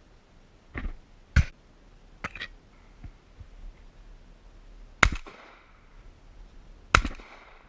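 Shotgun fired twice, about two seconds apart, each shot trailed by a short echo. Before the shots come a few shorter, sharp knocks.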